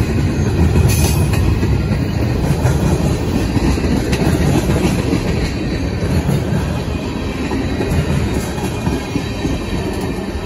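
CSX freight train of tank cars rolling slowly past, a steady rumble of steel wheels on the rails with a sharp clank about a second in.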